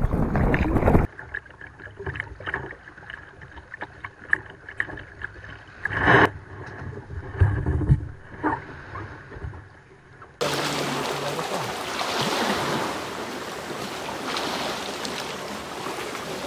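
Wind buffeting the microphone on a kayak at sea. After a cut, scattered small splashes and knocks at the water's edge as the kayak sits in the shallows, the loudest about six seconds in. About ten seconds in a second cut brings a steady rushing of small waves on the shore.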